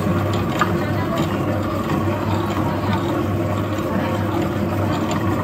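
Commercial planetary dough mixer running steadily, its motor humming and its gears and beater rattling as it mixes bread dough in a stainless steel bowl.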